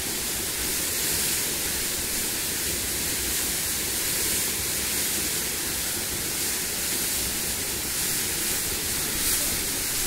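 Steady rushing of a waterfall and river water, an even unbroken roar.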